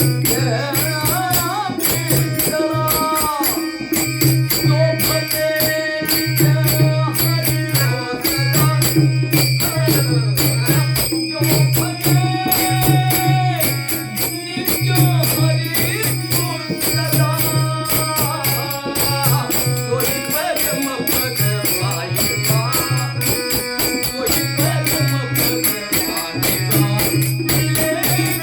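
Marathi devotional song (abhang) in music: a sliding, wavering melodic line over a steady low drone, with fast jingling percussion keeping an even beat.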